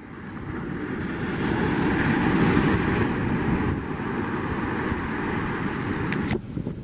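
Rushing noise of wind and surf on an open beach. It swells over the first two seconds or so, holds, and cuts off abruptly near the end.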